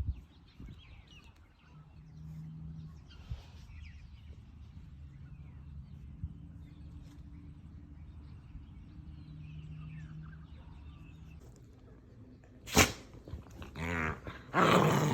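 A dog growling low in play, then a sharp bark about thirteen seconds in and a louder, drawn-out pitched growl near the end.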